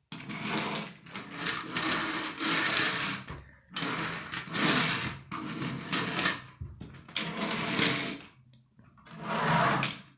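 Toy vehicle's geared motor whirring in a series of bursts of a second or two each, with short breaks between, as the toy is pushed along and revved.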